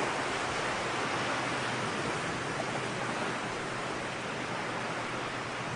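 Steady rushing wash of ocean surf, an even noise without distinct breaks.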